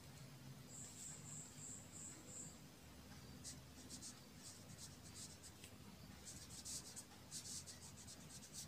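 Felt-tip marker writing on paper: faint scratchy strokes, a few about three and a half seconds in and a busier run over the last two and a half seconds as words are written.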